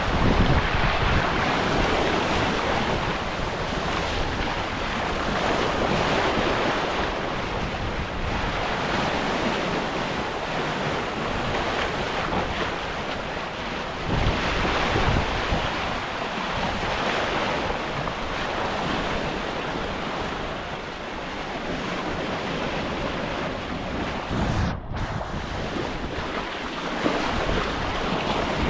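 Wind and breaking sea around a sailing yacht under way, with wind buffeting the microphone. The noise surges and eases, with a brief dropout about three-quarters of the way through.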